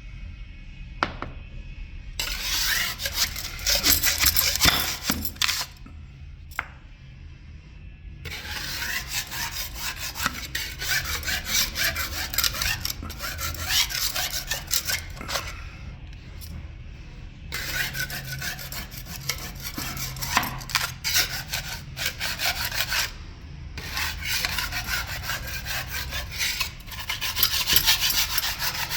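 Hand tool scraping and rubbing across a marble stair surface in long bouts of rapid back-and-forth strokes, with short pauses between bouts, as an old coating is worked off the stone.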